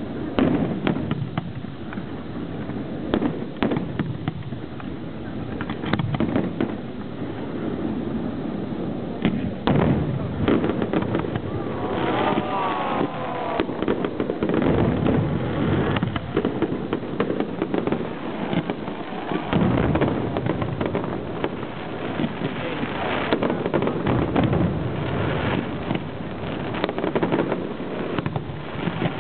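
Large fireworks display: aerial shells bursting in a continuous series of bangs, some singly and some in quick runs, over a constant rumble.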